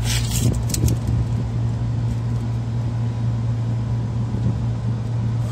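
A steady low machine hum with a few sharp clicks in the first second.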